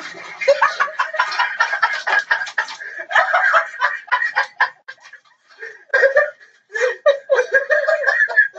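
A person laughing hard in rapid, choppy bursts, with brief pauses about five and six and a half seconds in; it stops abruptly near the end.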